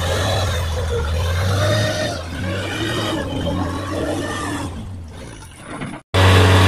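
Truck engine running under load as the truck labours through deep mud, with a steady low hum. The sound fades, cuts out for an instant about six seconds in, then returns louder.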